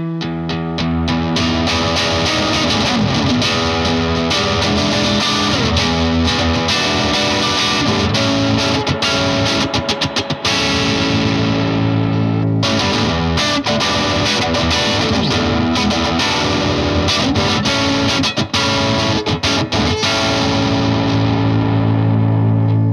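Electric guitar, a Fender Custom Shop '57 Stratocaster, played through an MXR Duke of Tone overdrive pedal into a Vox AC15 amp: gritty, driven riffs and chords. A chord is left ringing about halfway through before the playing picks up again, and a last chord rings out over the final few seconds.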